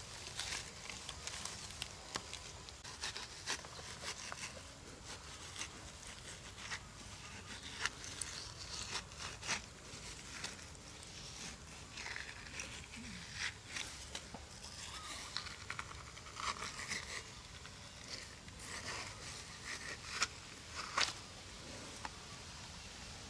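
Thin bamboo stick digging into and scraping the flesh of a halved watermelon: a string of irregular short scrapes and clicks.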